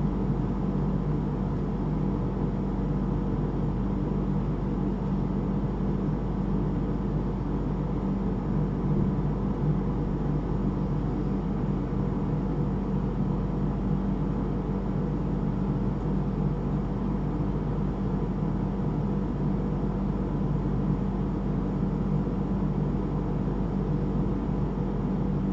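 A steady low mechanical hum with a faint hiss, unchanging throughout.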